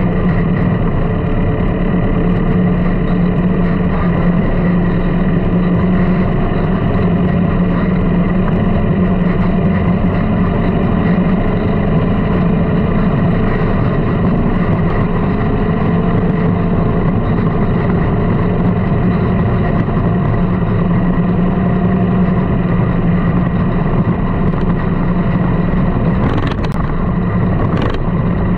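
Engine of a small sand rail running steadily under way over sand, its pitch rising and falling slightly. Two short ticks near the end.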